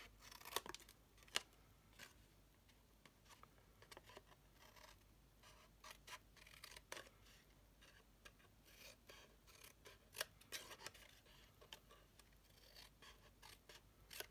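Small pointed craft scissors snipping notches into cardstock: faint, irregular short snips and clicks of the blades closing.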